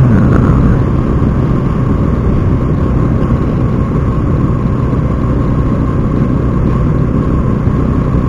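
Steady wind and road rumble over a motorcycle engine's drone while riding, picked up by a clip-on lavalier mic inside a full-face helmet with the visor closed, so the wind is muffled.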